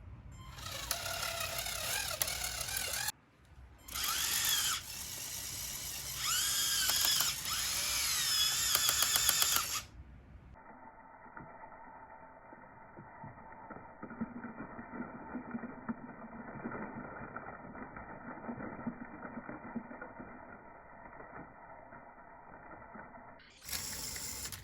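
Small electric motors and plastic gears of a motorized LEGO Technic 42030 model running, with a whine that rises and falls in pitch as the motors speed up and slow down. In the middle stretch the sound turns duller and steadier, then the fuller motor whine returns near the end.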